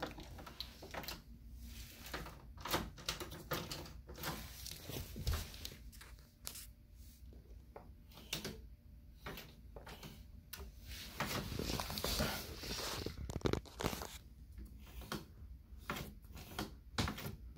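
Irregular clicks, taps and knocks of a hard-plastic, 3D-printed door-opener foot pedal and its hinged arms as they are handled and moved, with a longer rustle about twelve seconds in.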